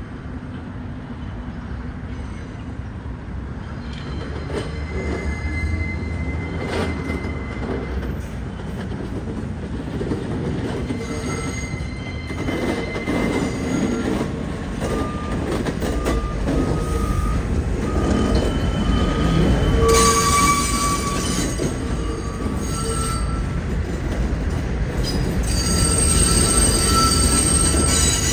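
New York City subway train rolling slowly through yard curves and switches, its wheels squealing in high tones that come and go over a low rumble. The rumble grows louder as the train draws close, with a few knocks from the wheels over the track.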